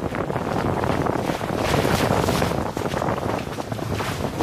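Wind buffeting the microphone over the rush of water along the hulls of a Hobie Getaway sailing catamaran under way: a steady, gusting noise with no distinct hits.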